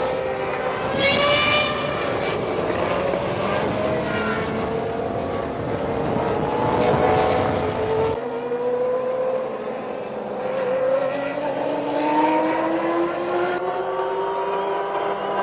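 Formula One race car engines running at high revs, their pitch rising and falling as cars accelerate and pass, with a sharp high-pitched pass about a second in. About eight seconds in the deep rumble drops away abruptly, and higher engine tones rise steadily.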